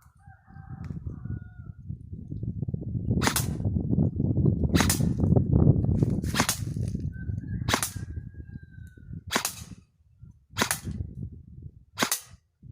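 John Wick Taran AEG airsoft rifle firing single shots in semi-automatic: seven sharp shots, about one every second and a half, starting about three seconds in. Under them is a low rumbling noise that fades out near the end.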